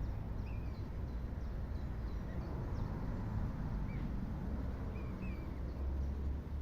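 A steady low rumble, with several short, faint, high bird chirps scattered over it.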